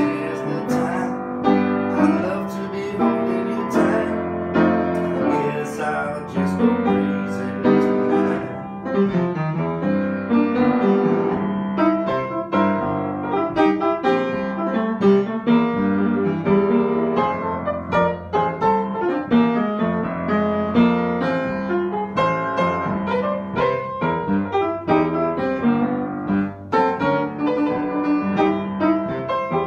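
Piano playing a song: a steady run of chords and melody notes with no pause.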